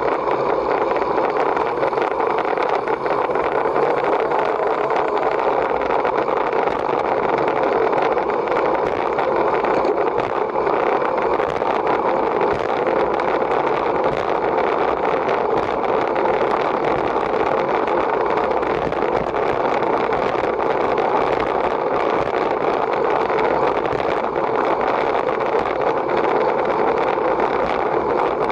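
Steady rushing of wind and tyre noise on a camera riding along with a bicycle road race, even and unbroken.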